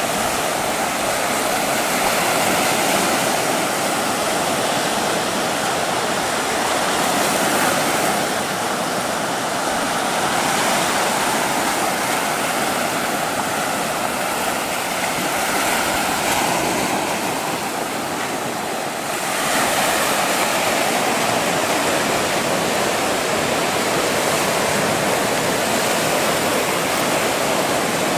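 Small sea waves breaking and washing over a pebble and shell beach. It is a steady rush of surf that swells and eases every few seconds and gets a little louder after about two-thirds of the way in.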